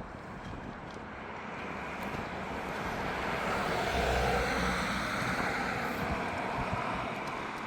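A vehicle driving past on the road, heard mostly as tyre noise on asphalt rather than engine, rising to its loudest about four seconds in and then fading away.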